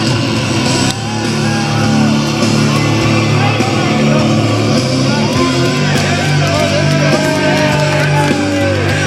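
Loud rock music with guitar and shouted vocals playing over the venue sound.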